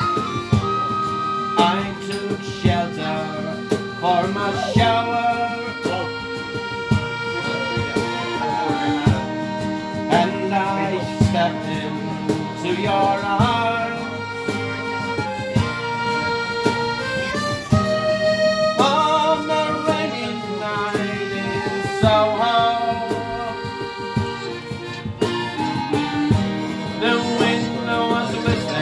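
Instrumental break on piano accordion and tin whistle, with held accordion chords under a slow melody, over a strummed acoustic guitar.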